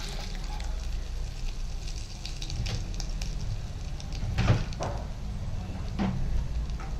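Cashews and dal frying in hot oil in a pan, sizzling over a steady low hum, with a utensil knocking and scraping against the pan a few times, loudest about four and a half seconds in.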